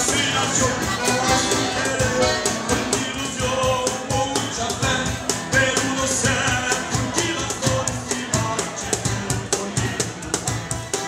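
Live band music: a Hohner piano accordion playing the tune over percussion keeping a quick, steady beat.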